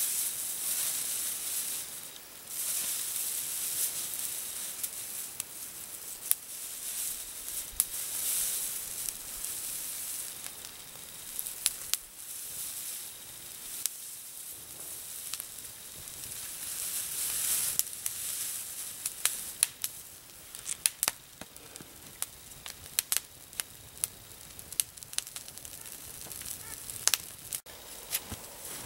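Damp grass-and-twig tinder bundle burning and hissing in swells, then a small fire of damp sticks crackling with many sharp pops over the last third.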